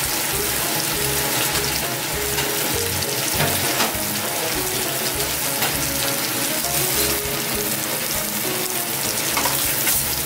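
Floured cutlassfish fillets frying in butter in a pan: a steady sizzle throughout.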